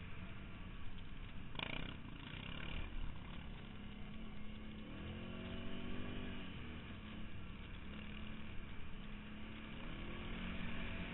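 Quad bike engine running while ridden along a snowy track, its pitch rising and falling as the throttle is worked about five seconds in and again near the end, over a steady rush of noise. A brief sharp clatter sounds about one and a half seconds in.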